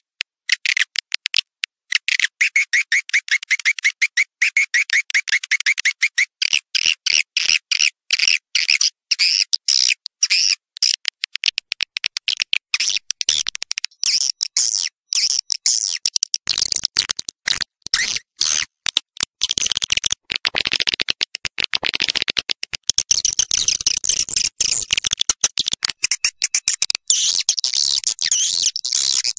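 Recorded swiftlet calls played as a lure: rapid, dense, high twittering chirps repeated in quick trains. About six seconds in, the chirping moves higher and grows busier.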